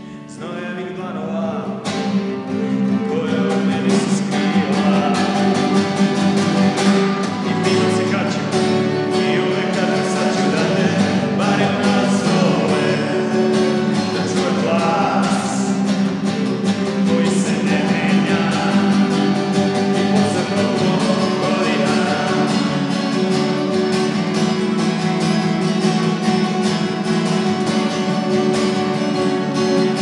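Two acoustic guitars playing together, strummed and picked, swelling in over the first few seconds and then running on at a steady level.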